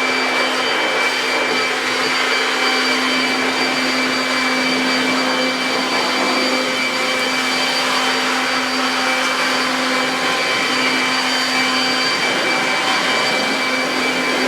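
Toro Super Blower Vac electric leaf blower running steadily, its motor and fan giving a loud, even rushing of air with a steady hum and higher whine on top.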